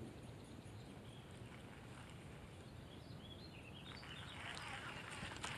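Faint outdoor ambience by open water, with a few short bird chirps about three seconds in. From about four seconds there is a soft, slightly louder hiss with a few small ticks.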